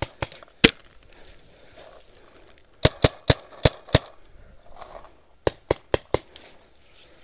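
Paintball marker firing: sharp pops in quick groups, two near the start, a burst of five about three seconds in, and four more about five and a half seconds in.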